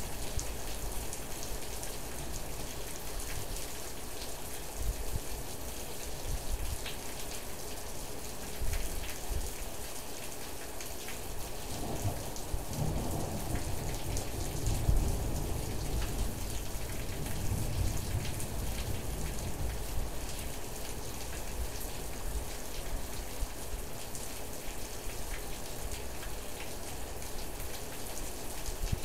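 Steady rain falling, with individual drops ticking sharply. About twelve seconds in, a low rumble of thunder rolls in and fades over several seconds.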